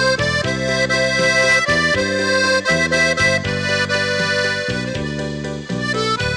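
Instrumental music led by accordion, with sustained chords and a melody over a bass line that changes every half second or so.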